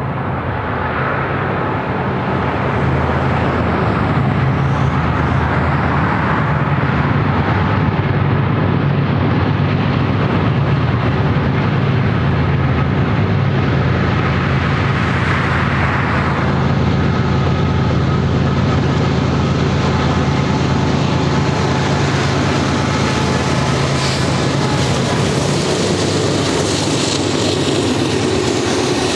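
Diesel-electric freight locomotives passing under load with a steady, deep engine drone. Near the end the engine sound eases and the double-stack container cars roll by with an even wheel-on-rail rumble.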